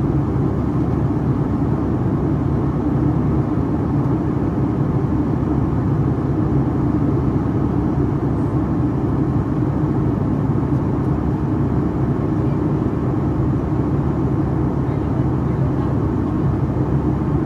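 Steady engine drone of a Boeing 757-300's wing-mounted turbofan in flight, heard inside the cabin at the wing: a loud, even rumble with a low buzzing hum held on a constant pitch.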